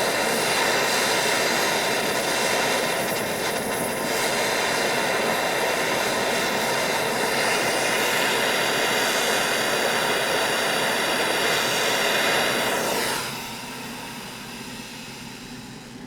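Gas blowtorch flame running with a steady roar, as used to heat the knife red hot. About 13 seconds in it drops sharply, leaving a quieter hiss.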